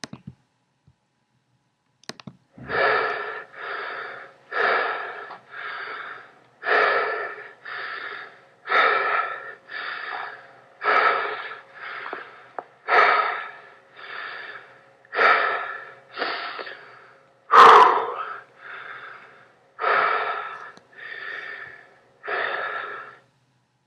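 A man breathing heavily and raspily, in and out about every two seconds, each louder breath followed by a softer one. About two-thirds through comes one sharper, louder gasp.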